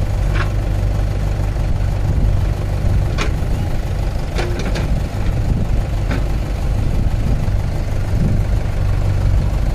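Diesel engines of a Mahindra 585 DI tractor and a JCB backhoe loader running steadily at a low, even speed while the backhoe digs and loads soil, with a few short knocks through the middle.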